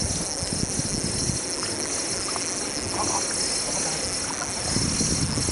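Wind buffeting the microphone as an uneven low rumble that eases off in the middle and picks up again near the end, over a steady high hiss, with a few faint light ticks in between.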